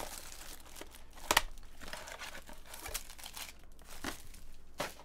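Crinkling of Bowman Chrome baseball card pack wrappers and plastic wrap being handled, with several sharp crackles, the loudest about a second and a half in.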